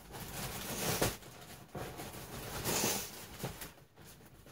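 Plastic craft packaging rustling and crinkling as it is handled, in irregular spells that are loudest about a second in and again near three seconds.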